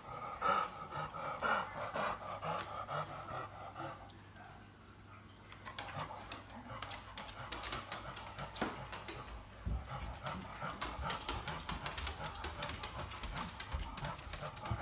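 Inspiratory stridor: a harsh, rasping noise on each breath in, the sign of a narrowed upper airway after surgery. The breaths are loudest in the first few seconds, and sharp clicks and rustling join in from about six seconds in.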